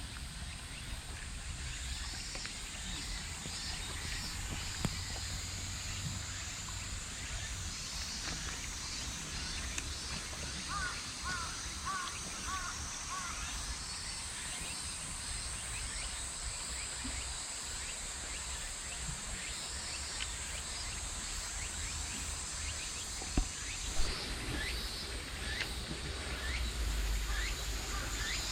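Outdoor ambience: a steady high drone with short chirping calls recurring every few seconds, a quick run of bird-like chirps about ten seconds in, and low wind rumble on the microphone.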